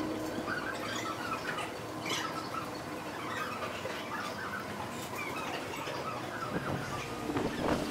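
Birds chirping and squawking in many short, irregular calls over steady background noise. A louder rush of noise comes in near the end.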